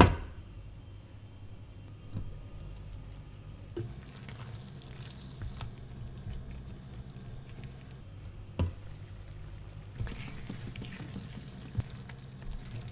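Thick curry sauce simmering in a stainless steel pot while a silicone spatula stirs and turns the chicken pieces, scraping the pot with a few sharp knocks against its side. A glass pot lid clatters as it is lifted at the start, and a steady low hum runs underneath.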